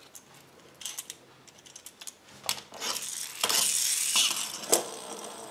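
Small plastic pull-back toy motorcycle being run along a tray, its wind-up spring motor whirring with a ratcheting buzz for about a second past the middle, ending in a click; a few light taps and clicks of plastic on the tray before it.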